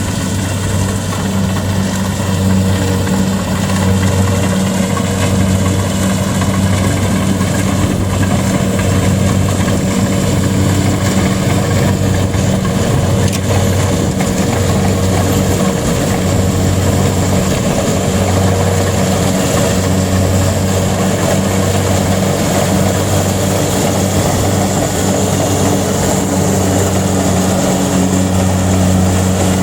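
Engine of rice-harvesting machinery comes up loud right at the start, then runs steadily at a constant speed with a deep, even hum.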